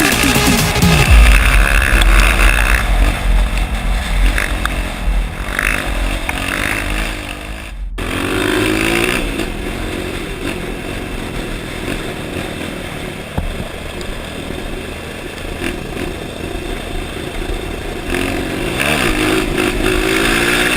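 Honda CRF motorcycle engine revving hard, its pitch rising and falling several times as it is ridden. The sound cuts out briefly about eight seconds in.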